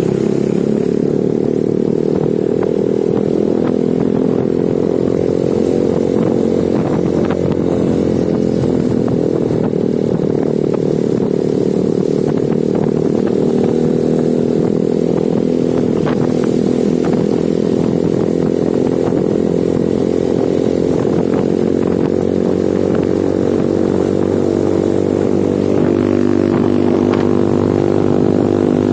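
Motorcycle engine running at a steady, nearly constant speed, with scattered clatters and knocks over it.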